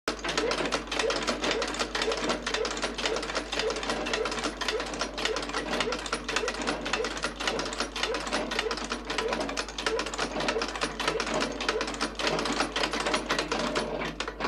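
Sewing machine running continuously, stitching leather shoe-upper pieces with a rapid, even clatter of needle strokes.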